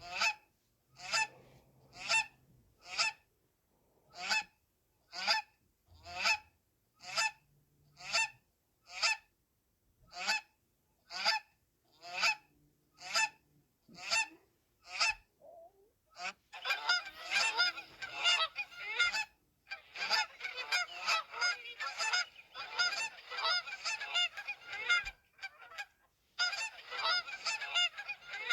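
Geese honking: one bird calls about once a second, then from about halfway through many geese honk at once in a dense, overlapping chorus.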